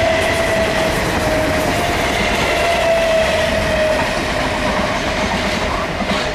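Two coupled South Western Railway Class 455 electric multiple units passing at speed: a steady rumble of wheels on the rails, with a whine that slowly drops in pitch as the train goes by.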